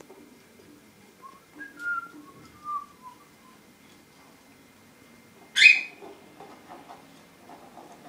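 Young cockatiels chirping, a run of short whistled notes that rise and fall, then a single sudden, loud, harsh burst about halfway through, followed by faint scattered chirps.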